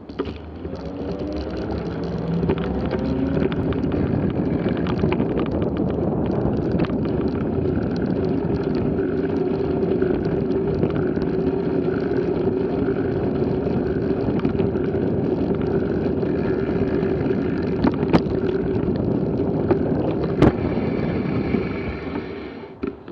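Riding noise from a bicycle-mounted camera: wind on the microphone and tyre and road noise. A hum rises in pitch as the bike picks up speed in the first few seconds, then holds steady. Two sharp knocks come late on, and the noise dies down near the end as the bike slows.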